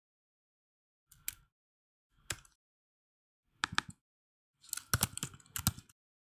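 Typing on a computer keyboard: single key presses about a second and two seconds in, a couple more near the middle, then a quick run of keystrokes near the end.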